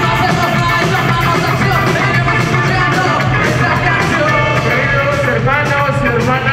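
Loud live ska band playing, with a singer on the microphone over the band.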